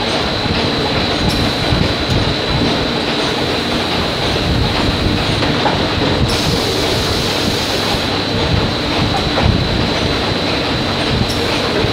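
Factory machinery running, with a steady rattling clatter of metal parts on a conveyor and a constant thin high whine.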